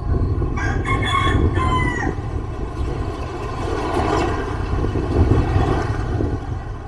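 A rooster crows once, starting about half a second in and lasting about a second and a half, its call dropping in pitch at the end. Under it runs a steady low engine rumble, which swells as a motorcycle sidecar tricycle passes close by around the middle.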